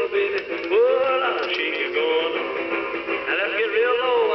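A 1980s Sears solid-state cassette player playing a song with a male singer through its small speaker, thin-sounding, with little bass or treble.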